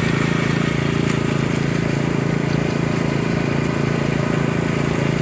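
Concrete power trowel running steadily, its engine giving an even, unchanging hum.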